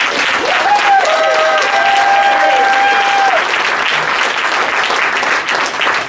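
Audience applauding, with one person's long, high cheer rising and then held for a few seconds near the start.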